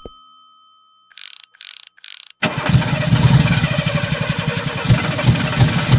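A 1995 Honda Civic's engine being cranked by the starter for several seconds, turning over rapidly without catching: the car won't start because a clogged fuel filter leaves no fuel pressure. A few short clunks come just before the cranking begins.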